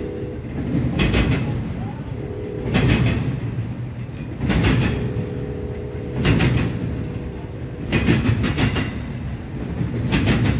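Intermodal freight train of container cars rolling past, a continuous rumble with wheel clatter in regular bursts about every two seconds as each car's wheels go by.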